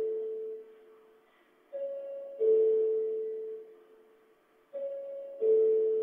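Two-tone electronic chime: a higher note followed by a louder, lower note that rings out and fades, the ding-dong repeating about every three seconds.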